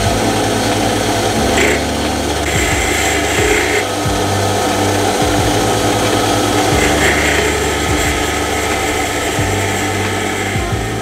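Small metal lathe running with its cutting tool taking a facing cut across the end of a home-cast brass bar: steady motor and spindle sound with the scrape of the cut, and brief brighter patches of cutting noise.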